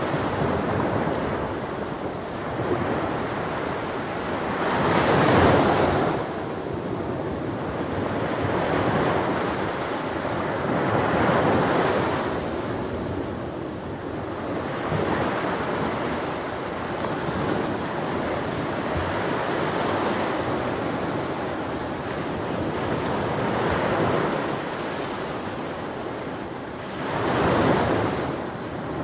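Ocean surf on a beach: a steady wash of water with waves breaking every few seconds, each one a swelling rush. The biggest breaks come about five seconds in and near the end.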